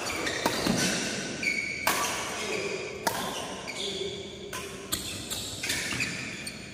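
Badminton rally: rackets striking the shuttlecock several times, about once a second, with sneakers squeaking on the court floor between hits.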